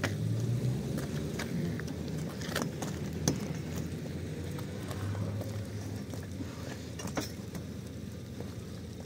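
Steady low rumble of wind on the microphone, with scattered sharp knocks and rustles as a fabric tent cover is dragged over a metal pole frame. The sharpest knock comes about a third of the way in.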